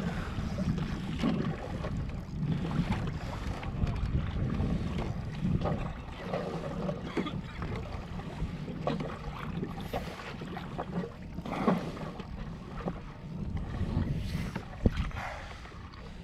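Wind buffeting the microphone over water lapping around a kayak on open sea, with scattered light knocks and one sharper knock near the end.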